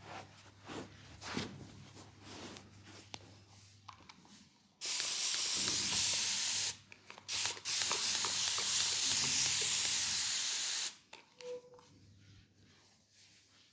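Spray hissing in two long bursts, about two and three seconds, with a couple of quick puffs between, each cutting off sharply.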